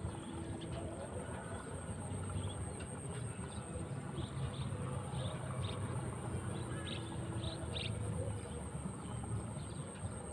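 Outdoor ambience: a steady low rumble and a constant thin high-pitched hum, with a run of short bird chirps through the middle.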